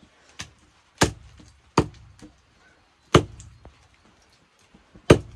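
A heavy knife chopping a dressed chicken into pieces on a wooden stump block: four hard chops at uneven intervals, with a few lighter taps between.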